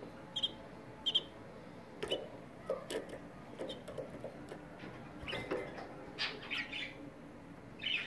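Caged canaries giving short, sharp chirping calls, scattered singly and then in a quick cluster, with light clicks and scrabbling of the birds moving about on the wire.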